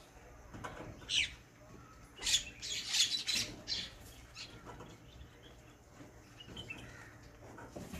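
Birds chirping in short, scattered calls, mixed with the rustle of a paper banknote being handled and pressed flat.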